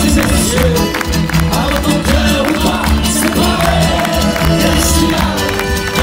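Live acoustic band playing an instrumental passage: strummed acoustic guitar and accordion over a steady percussion beat.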